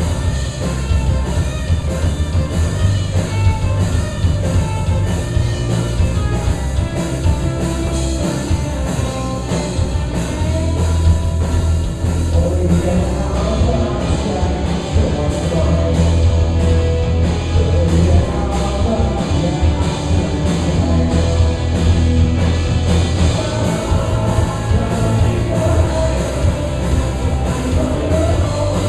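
Live rock band playing loud and steady, with a heavy bass line, a regular drum beat and singing.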